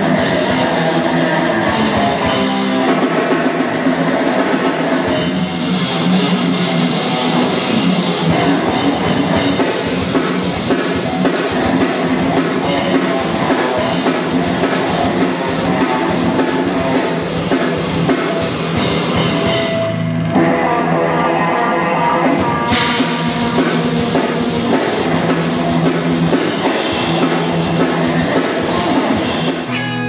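Rock music played by a band on drum kit and guitar, with a steady beat; the drums drop out briefly about twenty seconds in, then come back.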